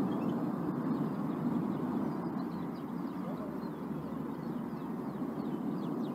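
Soundtrack of a La Palma volcano live-feed video playing back: a steady low rumbling noise with faint high chirps above it. It cuts off suddenly near the end when the video is paused.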